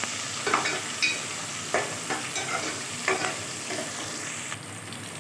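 Sliced onions frying in oil with dried red chillies and curry leaves, sizzling steadily while a spatula stirs and scrapes against the metal pot every half-second or so. The scraping stops and the sizzle drops lower about four and a half seconds in.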